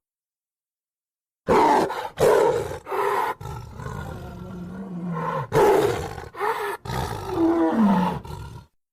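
Dinosaur creature sound effects for a Pachyrhinosaurus character: a run of short, loud calls broken by brief gaps, starting about a second and a half in, with a falling cry near the end.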